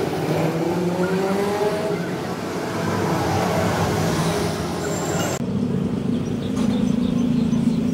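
An engine running, its pitch rising in the first few seconds. About five seconds in, the sound changes abruptly to a steadier hum.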